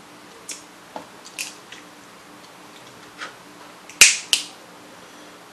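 A few soft mouth clicks as crab meat is sucked from the shell, then two sharp cracks about four seconds in as a crab-leg shell is snapped apart by hand.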